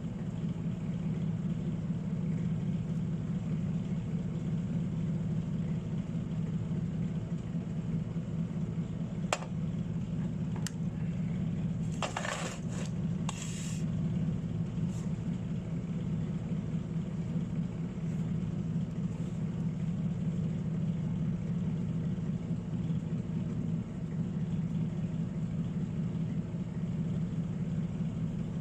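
Steady low machine hum with a few short clicks and scrapes in the middle.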